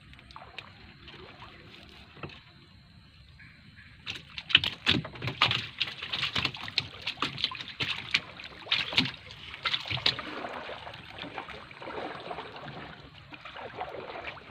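Water splashing and sloshing against a small wooden boat as a fishing net is handled over the side. It is quiet at first, then about four seconds in comes a quick run of splashes and knocks that eases off after about six seconds.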